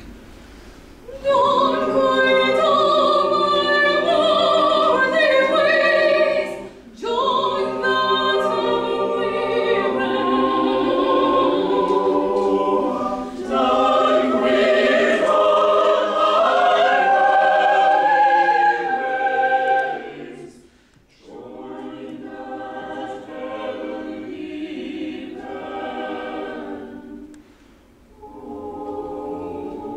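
Mixed choir of men and women singing a classical piece. The choir enters about a second in and sings loud sustained chords for most of the first twenty seconds. After a brief break it continues more softly.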